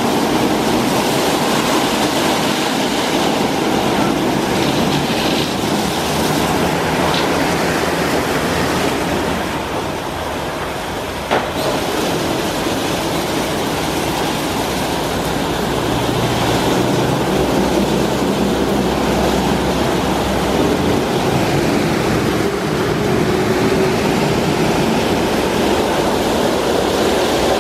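Istobal M'Start rollover car wash gantry running over a car: wet spinning brushes swishing and slapping against the body with a steady rumbling wash of noise. A single sharp click sounds about eleven seconds in, and a low machine hum joins in for a few seconds past the middle.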